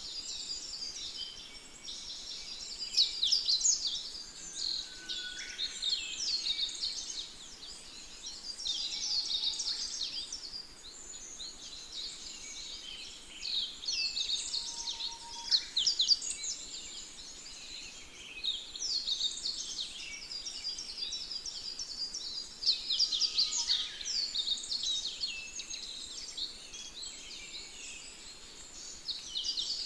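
Forest ambience dominated by a dense chorus of high-pitched bird chirps and twitters, coming in bouts every few seconds, with a few short, lower whistles.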